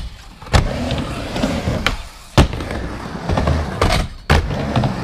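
Skateboard wheels rolling on a wooden mini ramp, with three sharp clacks of the board hitting the ramp: about half a second in, midway, and near the end.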